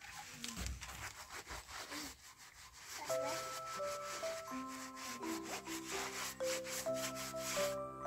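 Hands scrubbing a clay water pot, a quick run of rough rubbing strokes. Background music with held notes and a steady bass comes in about three seconds in and plays over the scrubbing.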